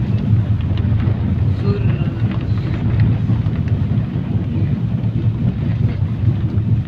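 Steady low rumble of a moving vehicle heard from inside the cabin, running at an even level with no clear changes.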